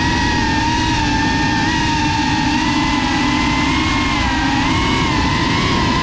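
FPV quadcopter's electric motors and propellers whining steadily over a rushing noise. The pitch wavers with the throttle, dipping a little about four seconds in and rising again.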